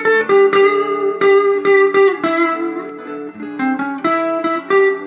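Fender Telecaster electric guitar played through a tube amplifier on its neck pickup: a melodic lead line of separately picked notes, often two notes ringing together, several notes a second.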